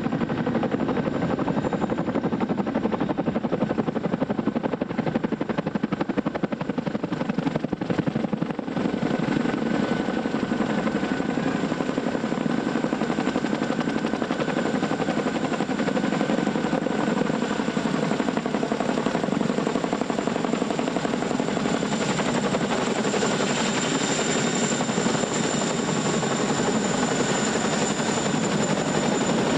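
Army CH-47 Chinook tandem-rotor helicopter flying in to hover: steady heavy rotor noise with a thin high turbine whine that grows stronger in the last several seconds as it draws near.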